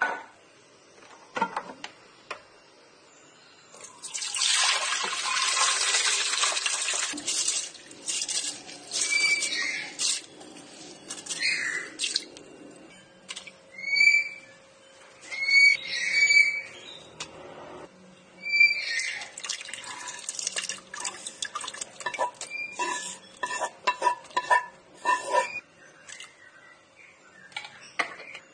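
Water poured onto rice for about four seconds. Then a bird chirps a dozen or so times, and near the end come about a dozen quick light taps and clinks of ingredients dropping into a metal rice-cooker pot.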